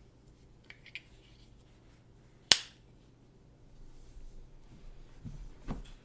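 Handling of an Apple TV box and its packaging: two faint clicks, then a single sharp click about two and a half seconds in, followed by soft rustling and a few light knocks near the end.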